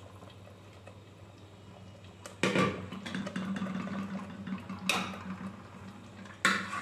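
A steel ladle stirring thin dal sambar in a steel pot, scraping and clinking against the metal. It starts after a couple of quiet seconds, with a sharp clink about five seconds in and another near the end. A faint low hum runs underneath.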